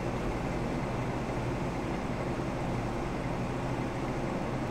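Steady background hum and rumble of noise with no distinct events.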